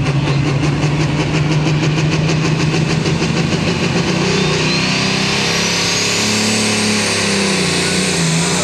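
Turbocharged diesel engine of a John Deere Super Stock pulling tractor running hard on the line, building power as it starts its pull, with black smoke pouring from the stack. A thin turbo whine rises steeply in pitch from about four seconds in and holds high near the end.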